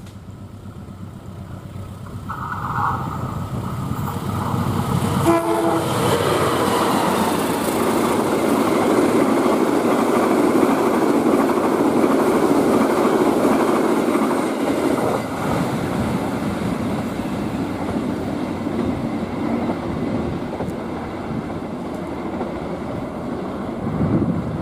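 A passenger train's diesel locomotive sounds its horn: a short blast about two seconds in, then another as it reaches the microphone about five seconds in, the pitch dropping as it goes by. The carriages follow at high speed with a loud rush and wheel clatter that eases off over the last several seconds.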